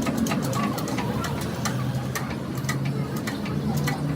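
Irregular sharp clicks, several a second, over a steady low hum.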